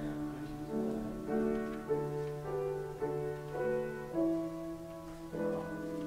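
Slow instrumental keyboard music: chords change every half second or so over held bass notes.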